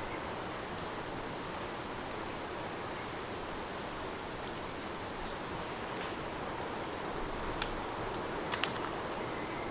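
Steady rain ambience with a few short, high bird chirps, a couple of them close together near the end.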